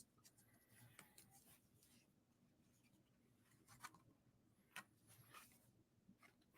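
Near silence, with faint rustling and a few soft clicks from paper and packaging being handled.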